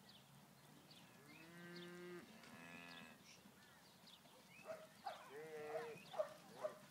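Cattle mooing faintly: a long, low moo that lasts about two seconds, starting about a second in, then a higher, wavering call about five seconds in.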